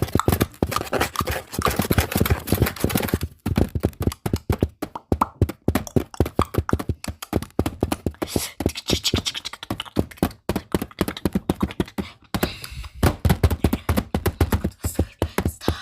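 Fast tapping on a Kura Kura camera's body, many taps a second, with short breaks about three seconds in and about twelve seconds in.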